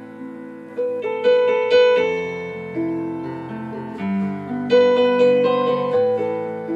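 Background music on piano: chords and melody notes struck in small clusters and left to ring and fade.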